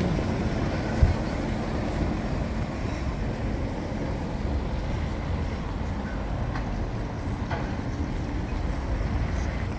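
Heavy vehicle traffic: a semi-trailer truck with a refrigerated trailer driving slowly past, with a steady low engine and tyre rumble. A single sharp knock comes about a second in.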